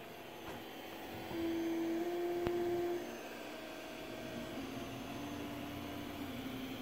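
Creality CR-10 3D printer printing: its stepper motors whine in held tones that jump to a new pitch each time the print head changes move, over a steady fan hum. The whine is loudest from about one and a half to three seconds in.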